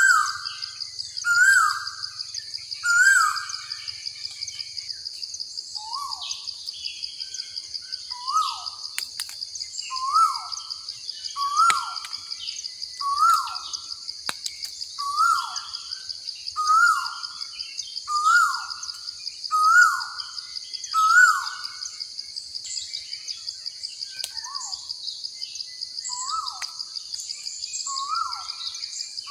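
A bird repeating a short, falling call about every second and a half, with a couple of brief pauses, over a steady high-pitched buzz and fainter high chirps.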